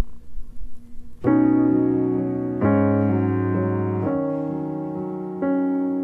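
Instrumental intro to a soft song on piano: after a faint quiet opening, slow sustained chords begin about a second in and change roughly every second and a half, each left to ring and fade.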